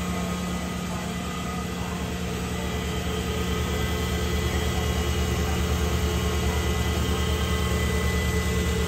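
Omniturn GT-75 gang-tool CNC turning center running: a steady machine hum with a fast low pulsing and a thin high whine.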